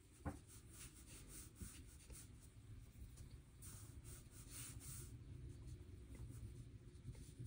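Faint, soft strokes of a wet watercolor brush on paper, a series of light brushing scratches repeating irregularly.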